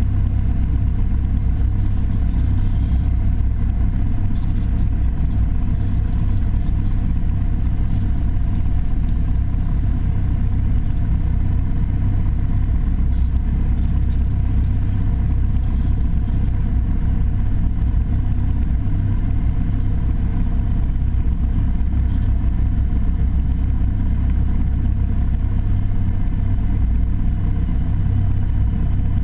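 Piper Warrior III's four-cylinder Lycoming piston engine and propeller droning steadily, with no change in pitch or level.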